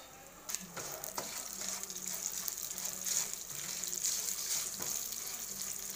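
Whole spices and chillies sizzling in a little hot oil in a non-stick frying pan while being stirred with a wooden spatula: a steady hiss that starts about half a second in, with scattered crackles and scrapes.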